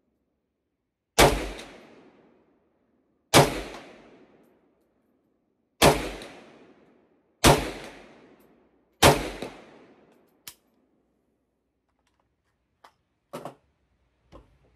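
Five aimed semi-automatic shots from a 1981 Polish AK underfolder rifle in 7.62x39mm, spaced about one and a half to two and a half seconds apart, each with a short echoing tail. A few much fainter clicks and knocks follow after the last shot.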